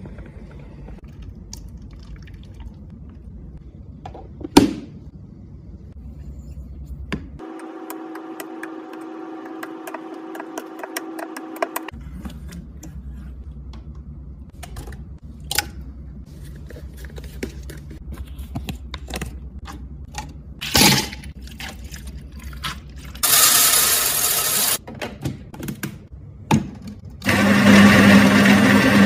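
Kitchen handling sounds: scattered taps and clunks of utensils and containers, with one sharp knock about four and a half seconds in and a steady hum for several seconds in the middle. Near the end, the built-in grinder of an espresso machine grinds coffee into a portafilter in two loud bursts, a few seconds apart.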